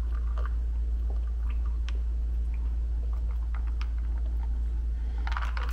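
Faint sips and swallows as a glass of green juice is drunk, with scattered small clicks, over a steady low hum. There is a short breathy sound near the end.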